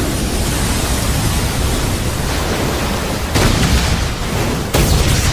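Animated battle sound effects: a loud, steady rushing roar, with two sudden blasts about three and a half seconds in and near the end.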